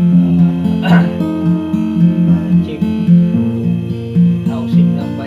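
Background music: acoustic guitar picking a steady, repeating pattern of notes.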